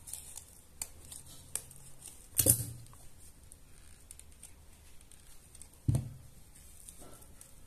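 Scissors snipping the stem of a small artificial flower, with a few light clicks, then two short knocks as tools are set down on the cloth-covered table, about two and a half and six seconds in.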